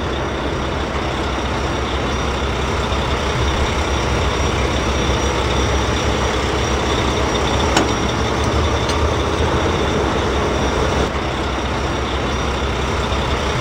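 A heavy truck engine running steadily, a constant low rumble that does not rise or fall, with one brief click about eight seconds in.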